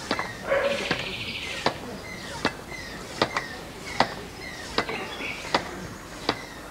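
Hand air pump worked in steady strokes to inflate a football, a sharp click about every three-quarters of a second, with a short rasp about half a second in.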